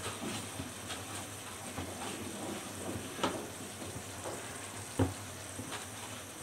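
Chicken and carrot curry sizzling in a karahi on the stove, a steady frying hiss with scattered small crackles and two sharper clicks, about three and five seconds in.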